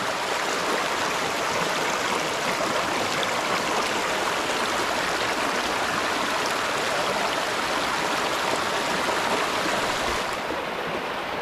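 Mountain stream water rushing steadily over rocks, heard close up; the brighter hiss of the flow softens about ten seconds in.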